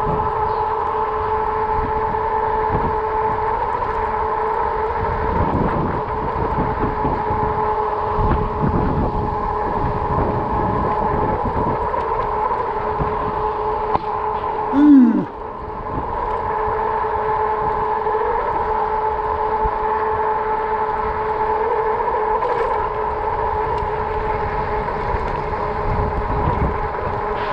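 RadRover electric fat-tire bike cruising at a steady speed: a steady whine from the bike with wind rumbling on the action camera. About halfway through there is one short, loud sound that falls in pitch.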